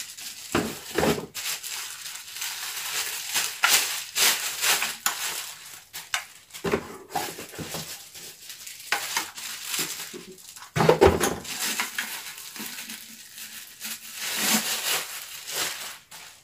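Clear plastic wrapping crinkling and rustling as it is pulled off plastic blender cups, with a few dull handling knocks.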